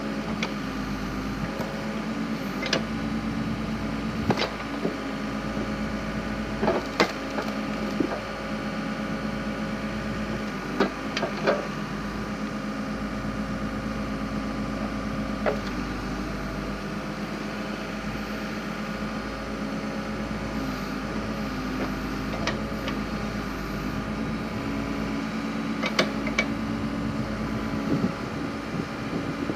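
Backhoe engine running steadily while its hydraulic log splitter works, with sharp cracks and knocks of wood splitting every few seconds.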